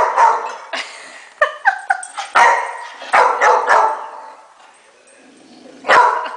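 Rottweiler barking repeatedly in short runs, with a few higher yelps about one and a half seconds in, then a lull before a last bark near the end.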